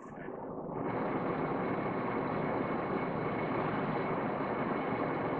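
Steady, even background noise with no distinct events, like the hum of a room's machinery. It fades in over the first second and holds level. No breath sound stands out during the hold.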